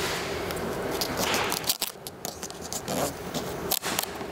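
Vinyl wrap film rustling and crinkling as it is handled and pressed by hand onto a plastic car grille, with scattered small clicks.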